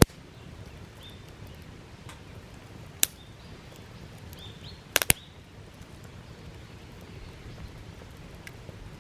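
Wood fire crackling: firewood burning with a steady low rumble, broken by sharp pops, a loud one at the start, another about three seconds in and a quick double pop about five seconds in.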